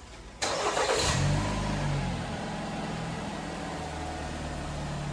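2019 Jeep Compass engine started: a short burst of starter cranking about half a second in, the engine catching about a second in, revving briefly and settling to a steady idle. It runs without the belt noise now that the alternator's seized overrunning pulley has been replaced.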